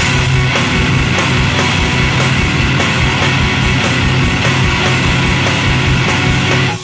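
Math rock band playing a loud, dense full-band passage with a steady bass line and regular drum hits, cutting off abruptly near the end.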